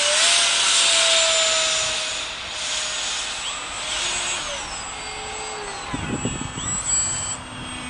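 Electric motor of an RC model Saab Viggen jet whining in flight, its pitch sliding up and down with throttle and distance. It is loudest in the first couple of seconds and then eases off. A brief low rumble comes about six seconds in.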